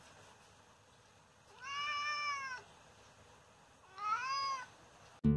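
A domestic cat meows twice, each meow rising and then falling in pitch, the first about a second long and the second a little shorter. Acoustic guitar music cuts in at the very end.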